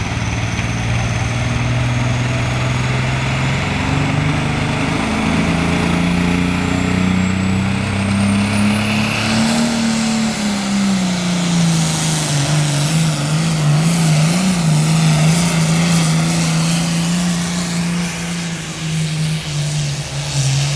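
International pulling tractor's diesel engine running hard under load on a pull, its note climbing to a peak about halfway through, then settling and holding steady. A high whine climbs in pitch during the first half.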